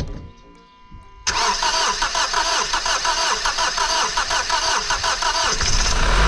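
Honda 2.2 i-CTDi (N22A2) four-cylinder diesel being cranked by the starter motor, a rhythmic churning that begins about a second in and lasts about four seconds, then catching and settling into a steady idle near the end. This is its first start after a timing chain replacement.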